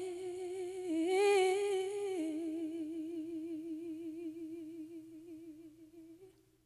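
An unaccompanied solo female voice holds one long sung note with a wide vibrato. The pitch steps up about a second in, then drops about two seconds in, and the note fades out shortly before the end.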